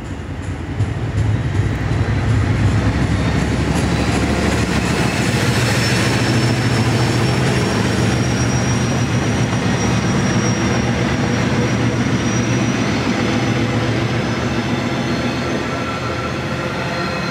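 Class 56 diesel locomotive passing at the head of a freight train, its Ruston-Paxman sixteen-cylinder engine running under load with a deep steady drone, followed by box wagons rolling by. The sound swells over the first second as the locomotive draws level, and a thin high whine runs above the drone through the middle.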